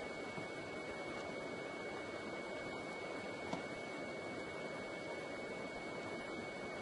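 A steady high-pitched tone held over a constant hiss, with one faint click about three and a half seconds in.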